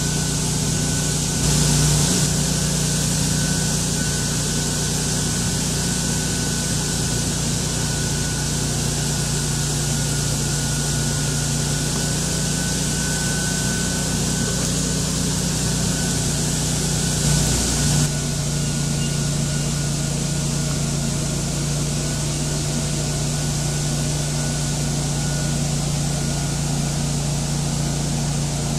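Buffalo Turbine Cyclone truck-mounted debris blower running: a steady engine hum under loud rushing air with a thin high whine, swelling briefly twice, about two seconds in and again about seventeen seconds in.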